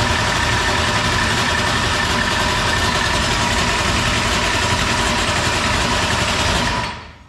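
Starter cranking a 465-cubic-inch dirt late model race engine with the ignition switched off, spinning it over with compression. It makes a steady whine over a dense low churn and stops about seven seconds in.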